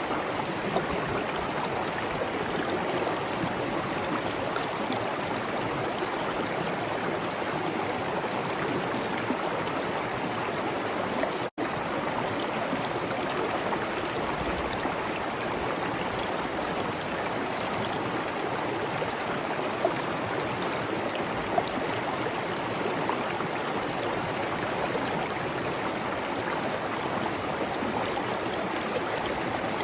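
Waterfall: steady rushing, splashing water with no change in level, broken only by a split-second gap about eleven and a half seconds in.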